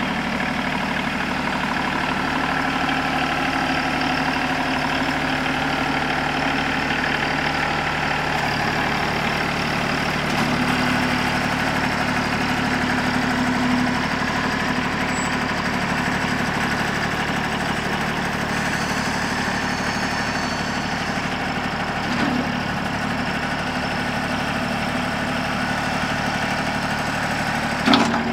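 Mahindra eMax 25L compact tractor's three-cylinder diesel engine running steadily while the tractor drives and works its front loader. One sharp clank comes near the end.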